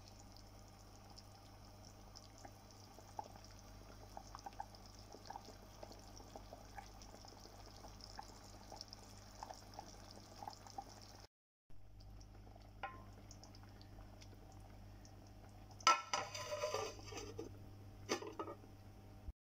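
Curry simmering in a clay pot, with small scattered bubbling pops over a steady low hum. Near the end a metal lid clatters and rings as it is handled.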